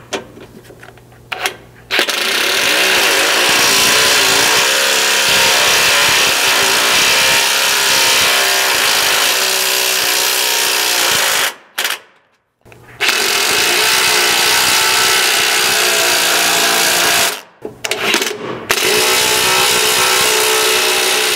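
Cordless impact driver with a 9/16 socket hammering 3/8 thread-cutting bolts into a truck frame through a skid bracket. It runs in three long stretches with short pauses and a couple of brief spurts between, the first lasting about nine seconds.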